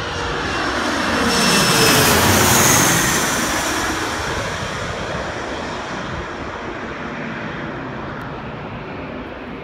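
Jet airliner passing low overhead on its landing approach, gear down: its engine noise grows to a peak about two seconds in, the whine dropping in pitch as it goes over, then fades to a steady rumble.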